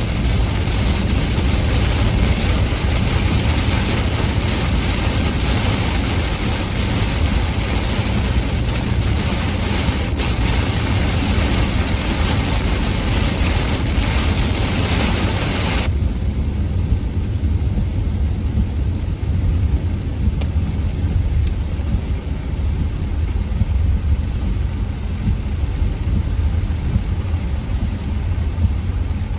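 Steady low road rumble inside a moving Toyota Corolla Cross, with a loud rain-and-spray hiss over it. About halfway through, the hiss cuts off suddenly and the low rumble carries on.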